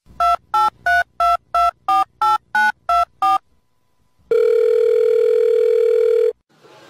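Telephone keypad touch-tones: ten short beeps at about three a second, each a different key. After a short pause comes a steady tone lasting about two seconds.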